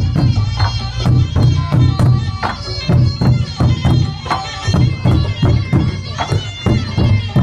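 Thai traditional war-drum ensemble playing: large barrel drums struck in a steady run of quick strokes, with a shrill reedy wind melody over them.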